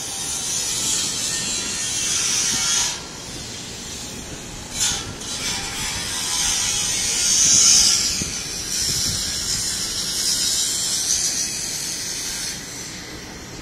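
Power tools at a building renovation, a high-pitched whirring that stops about three seconds in, sounds again briefly, then runs again from about six seconds until near the end.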